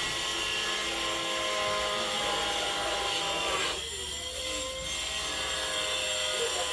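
A steady mechanical drone made of several held tones over a haze, dipping briefly a little over halfway through.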